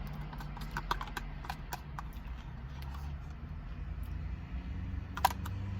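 Chewing and eating sounds: scattered small clicks and smacks, with a sharper click about five seconds in, over a steady low hum inside a car.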